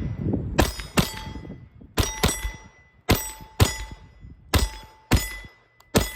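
Hammerli Forge H1 1911 .22 LR pistol fired one-handed at steel plates: about five sharp shots, roughly one a second, each followed by the clang and ringing of a hit steel plate.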